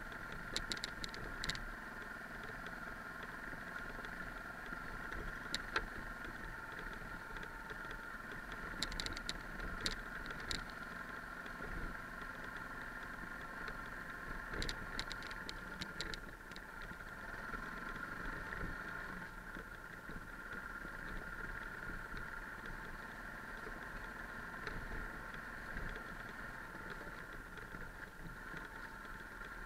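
A single-cylinder Yamaha 660 dual-sport motorcycle running steadily at low speed on a rough dirt track, heard from the bike. A few clusters of sharp clicks and ticks rise above it.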